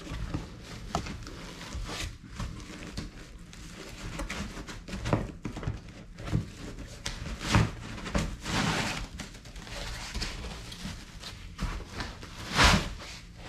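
Foam packing insert being worked loose inside a cardboard box: irregular rubbing and scraping of foam against the box, with a few sharper knocks, the loudest near the end.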